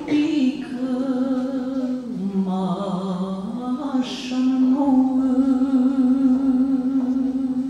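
A young woman singing a slow Romanian folk song solo, unaccompanied, in free rhythm with ornamented turns. She dips to a lower note and then holds one long, steady note through the second half.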